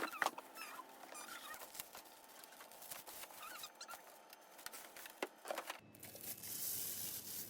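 Packaging being handled: crinkling and tearing with scattered clicks and a few faint squeaky chirps. About six seconds in, a steady hiss with a low hum takes over.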